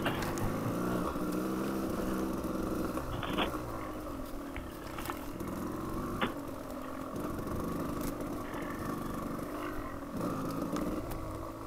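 Dual-sport motorcycle engine ridden at low revs, its pitch rising and falling with the throttle. Two sharp knocks, about three and six seconds in.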